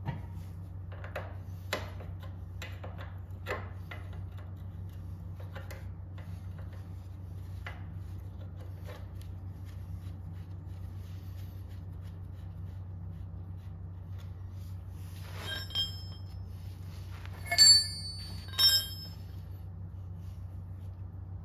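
Hand tools working on a vintage Austin 7's front axle and hub: scattered light metal clicks and taps, then near the end two loud metal clinks that ring briefly, over a steady low hum.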